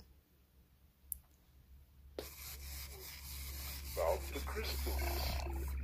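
First-generation Teddy Ruxpin's built-in cassette player starting a story tape: quiet for about two seconds, then tape hiss and a low hum come up suddenly, with the first faint sound of the recording near the end. The player runs slow, which the owner puts down to an off speed adjustment or worn belts.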